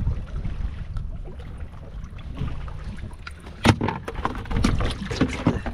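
Giant trevally landing in a plastic basket on the boat deck: one sharp knock about two-thirds of the way in, then a run of lighter knocks and slaps as it flaps. A steady low rumble lies underneath.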